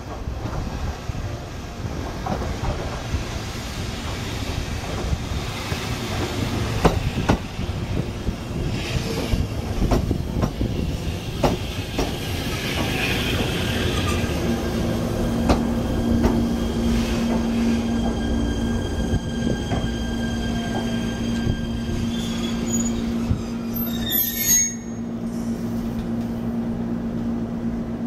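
JR E127 series electric train pulling into a station: wheels clicking over rail joints and squealing on the rails as it slows. Once it stands, a steady low electrical hum runs under the rumble, and a brief sharp noise comes about 24 seconds in.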